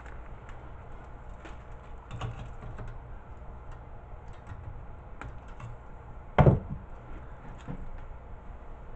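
Scattered light clicks and taps of a small circuit board and wire snips being handled, with one loud knock about six and a half seconds in.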